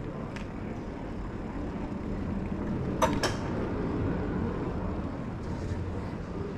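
Steady low rumble of wind and road noise from a bicycle ride, with two sharp clicks in quick succession about three seconds in.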